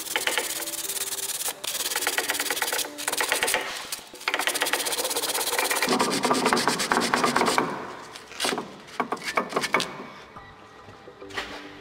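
Sandpaper rubbed rapidly back and forth by hand over a steel brake-caliper guide pin in several runs of scratchy strokes, stopping about eight seconds in, followed by a few light clicks. The pin is being sanded clean of dried, sticky grease so it slides freely and the brake pads wear evenly.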